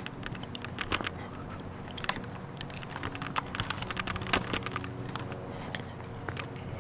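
Footsteps crunching and scuffing on a paved path strewn with grit and dead leaves: a stream of irregular sharp clicks.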